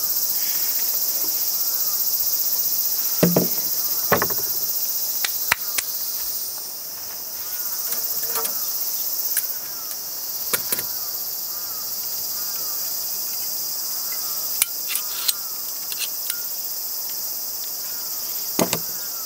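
A steady, high-pitched chorus of insects, with scattered short knocks and clatters from a wooden panel and a metal bar clamp being handled.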